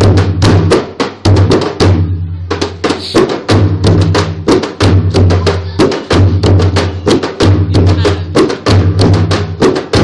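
Two dhime, Newar double-headed barrel drums, beaten by hand together in a fast, dense rhythm: deep ringing low notes under sharp slapping strokes. There is a brief break about two seconds in.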